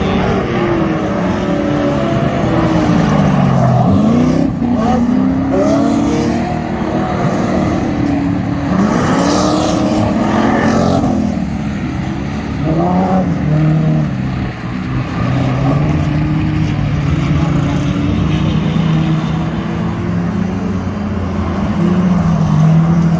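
Standard saloon race cars racing on a dirt speedway, their engines repeatedly rising and falling in pitch as they accelerate and ease off, with more than one engine heard at once as cars pass.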